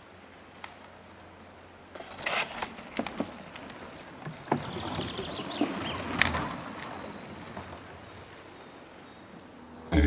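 Dirtsurfer wheels rolling over a wooden plank boardwalk: a rolling rush with irregular clacks and knocks that builds about two seconds in and fades again after about seven seconds.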